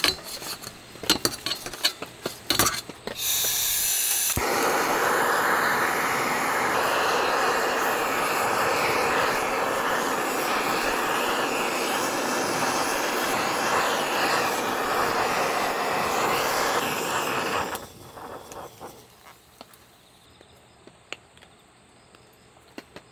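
A Searzall attachment on a butane torch burning steadily: an even, loud rush of noise that starts sharply about three seconds in and cuts off near eighteen seconds, as it sears slices of steak. Before it lights, a knife and tongs clink against a steel plate.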